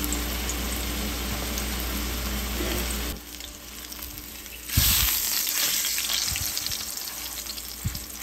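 Flour-dusted chuck roast searing in hot oil in a cast iron pan, a steady sizzle. About three seconds in the sizzle drops, then near the middle it flares up loud with a thump as the meat is turned in the pan, and slowly dies down.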